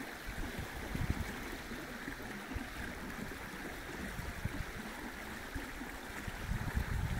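Steady rush of flowing stream water, with irregular low rumbles on the microphone.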